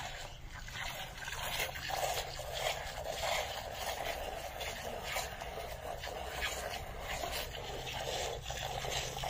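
Hand milking: milk squirted into a pail in repeated short strokes, with a faint low hum underneath.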